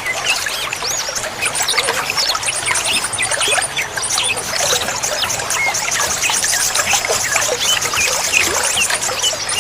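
Trickling water with many small birds chirping and twittering over it, and a rapid, high trill that comes and goes in stretches.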